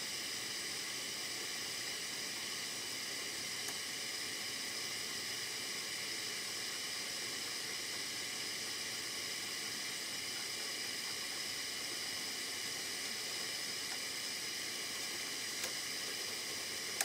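Steady low hiss of room tone, with no distinct filing strokes and two faint ticks.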